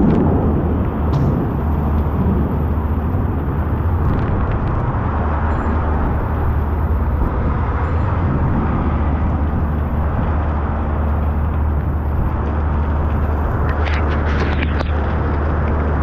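Heavy rain pouring steadily on a city street, a dense even hiss over a deep, constant low rumble, with a few sharp taps about fourteen seconds in.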